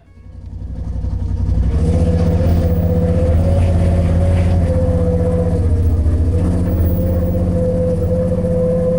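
Polaris RZR side-by-side's engine running: the sound builds up over the first second and a half, then holds steady with a constant whine.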